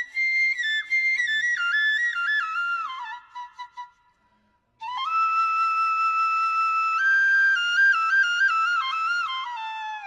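Background music: a solo flute-like melody moving in stepped notes. It breaks off for about a second midway, then resumes.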